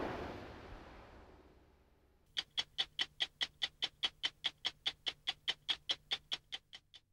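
A stopwatch ticking, the programme's closing sting: sharp, even ticks at about five a second, starting about two seconds in and stopping just before the end. Before the ticks, a rushing background sound fades away.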